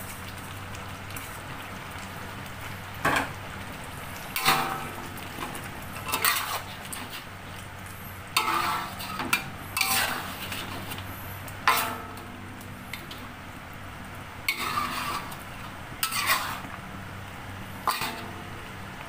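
Metal spatula knocking and scraping against a stainless steel wok while stirring chicken in thick gravy: about ten sharp, ringing clanks at irregular intervals, over a steady low hum.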